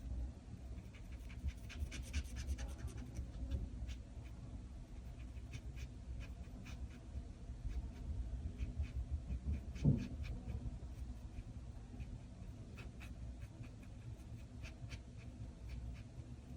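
Pen or marker scratching on paper in short, irregular strokes while drawing, over a low steady background rumble.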